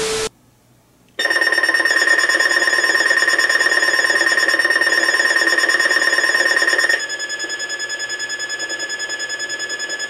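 A bank of weather alert radios sounding their alarms together for a flood watch: a loud, fast-pulsing electronic beeping of several pitches at once, starting about a second in after a short tone and a brief gap. About seven seconds in part of it cuts off, and a quieter, evenly pulsing beep carries on.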